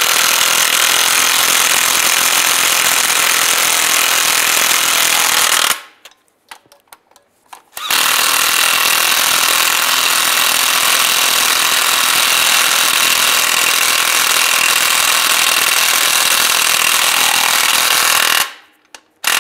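Cordless power tool driving a socket on an extension, tightening the transmission mount nuts in two runs: one of about six seconds, a pause of about two seconds, then a second of about ten seconds.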